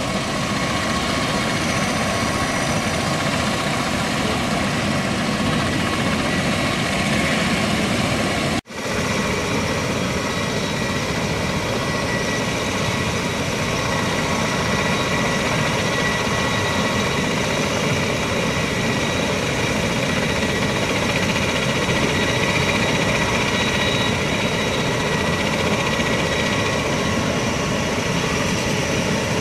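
MV-22 Osprey tiltrotor's turboshaft engines and rotors running steadily, with steady high-pitched whines over the rotor noise. The sound cuts out for an instant about nine seconds in.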